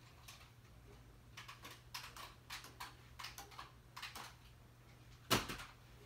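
A scatter of light clicks and taps as a toddler crawls among plastic laundry baskets and toys, then one louder knock about five seconds in.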